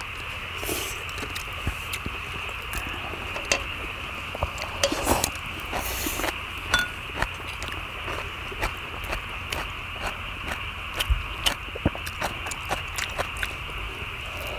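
Eating at a shared griddle: many short clicks of wooden chopsticks on a cast-iron cauldron lid and rice bowls, mixed with chewing, over a steady high hiss.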